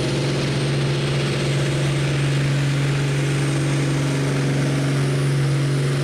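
Farm stock pulling tractor's engine running steadily, holding one constant pitch throughout.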